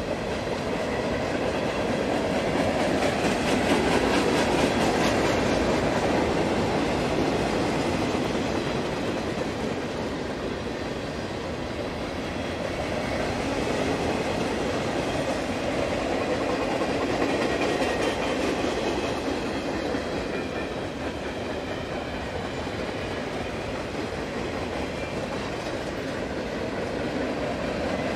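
Freight cars rolling past on the rails: a steady rumble and clatter of wheels over the track that swells and eases in loudness a couple of times.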